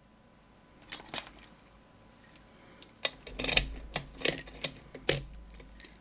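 Small metal clinks and rattles of lockpicking tools and a lock being handled: a few sharp clicks about a second in, then a busier run of clinking from about halfway through.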